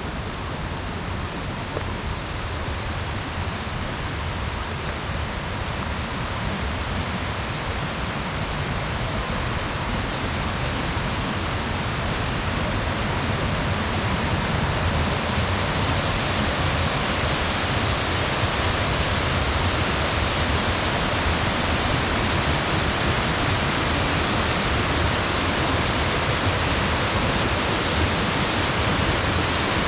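Steady rush of a waterfall and rocky rapids on a brook, growing gradually louder.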